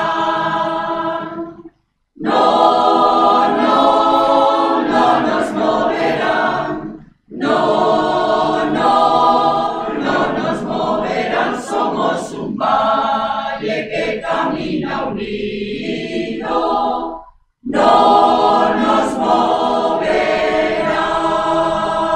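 Mixed choir of men's and women's voices singing a cappella, in four sustained phrases separated by brief silent pauses.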